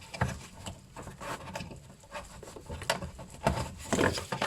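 Irregular plastic clicks, taps and rubbing as a wiring connector is unclipped and pulled from the fan motor of a ventilation unit, the louder clicks coming about three and four seconds in.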